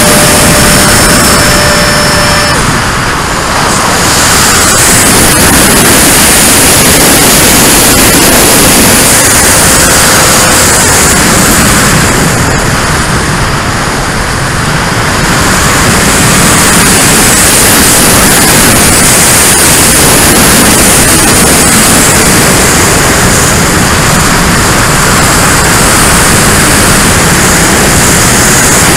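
Freewing T-33 electric ducted-fan model jet in flight, heard from a camera on the airframe: loud wind rush over the microphone with a thin, high fan whine. The sound dips briefly twice, about three seconds in and around the middle.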